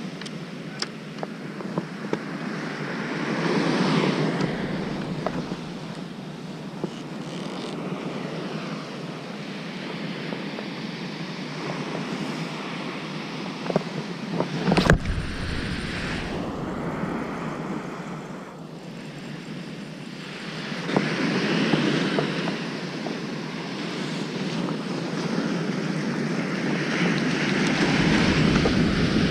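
Surf washing onto a sandy beach, swelling and fading in slow surges. A sharp knock comes about halfway through.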